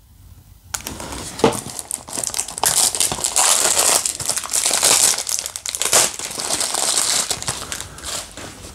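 Plastic shrink-wrap on a Blu-ray case crinkling as hands handle and pull at it, a dense crackle with a few sharper snaps. It starts just under a second in and eases off near the end.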